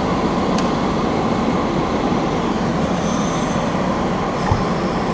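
Bench fan running with a steady rushing noise, with a light click about half a second in and a soft knock near the end as desoldered chips are moved about on the metal plate with tweezers.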